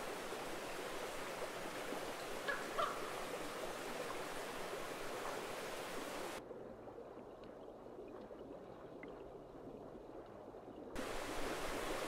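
Steady rush of a rainforest river flowing. Two brief sharp sounds come about two and a half seconds in. From about halfway to near the end the water sounds quieter and duller, then its full hiss returns.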